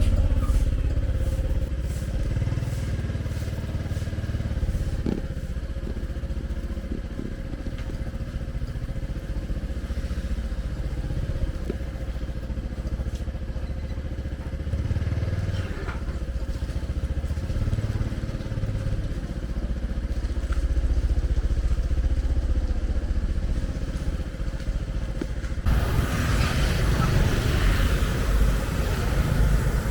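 Motor vehicle engine running steadily, a low rumble with a steady hum over it. About 26 seconds in, a louder, even hiss sets in suddenly.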